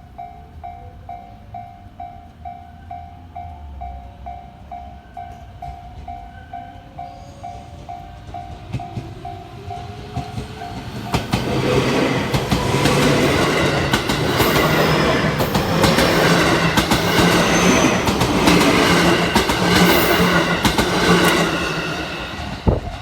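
Level-crossing warning bell ringing about twice a second as a JR West 207 series 1000 electric train approaches, its Toshiba GTO-thyristor VVVF inverter whining in faint rising tones. About 11 seconds in the train reaches the crossing and passes loudly with motor hum and wheels clattering over rail joints, fading near the end.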